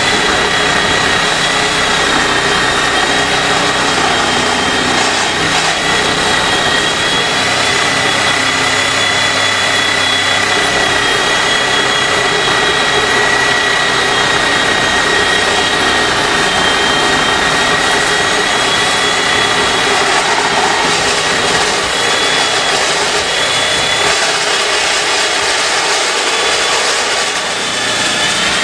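Corded reciprocating saw running steadily and cutting through the finned metal heatsink of a JBL BPX 2200.1 car amplifier, with a steady high whine over the cutting noise. The saw runs on about 131 volts at 60 Hz taken from the amplifier's own speaker output.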